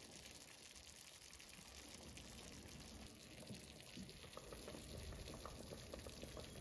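Faint, steady sizzling and simmering of food cooking in pans on a gas stove, nikujaga in a frying pan and a pot of pork-and-vegetable soup, with small clicks and bubbling from about four seconds in as the pot's lid is lifted.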